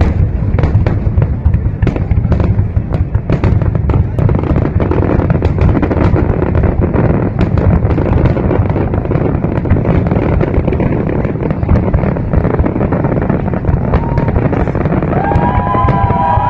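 Fireworks display: a dense, continuous rumble of overlapping booms with rapid crackling pops, thickest in the first few seconds.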